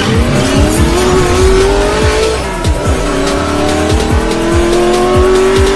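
Intro sting of electronic music with a steady kick-drum beat, laid over a racing-car engine sound effect. The engine revs up, drops back about two and a half seconds in as if shifting gear, then climbs again.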